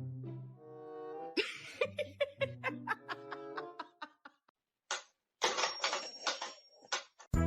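Background music: sustained notes give way to quick plucked notes about a second and a half in, and a different tune with a strong beat starts near the end.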